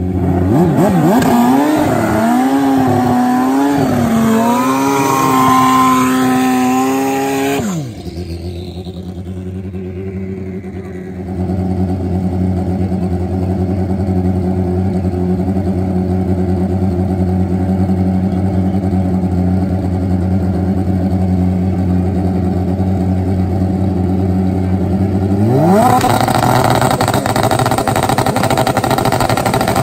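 Turbocharged Honda CBR1000RR drag motorcycle engines at the starting line. One revs up and down for several seconds, drops to a steady low idle, and revs up again near the end.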